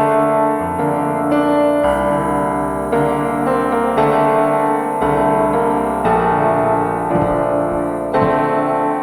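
Background music led by piano, a slow run of sustained notes and chords changing about every second.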